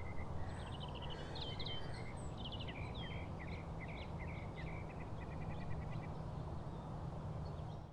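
Small birds chirping in quick runs of short high notes over a steady low outdoor rumble; the sound cuts off abruptly near the end.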